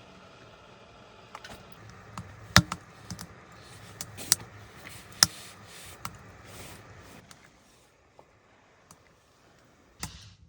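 A run of sharp knocks and clicks, irregular and a few loud ones among them, over a faint steady background, then quieter near the end.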